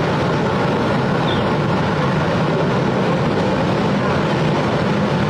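Motorcycle engine running steadily, with people talking around it.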